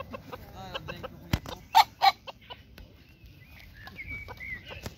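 Cochin rooster clucking in short calls, the two loudest close together about two seconds in, with a sharp knock just before them. A thin wavering higher tone comes in near the end.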